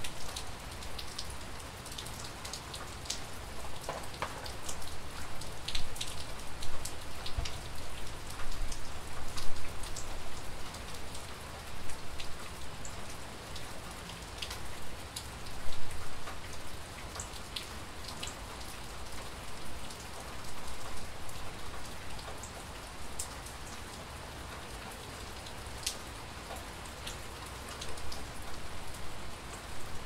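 Steady rain falling, with many separate drops tapping sharply over an even hiss.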